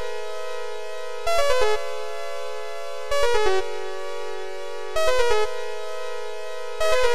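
Background music: a synthesizer playing sustained electronic keyboard notes in a repeating phrase, with a louder run of notes coming back about every two seconds.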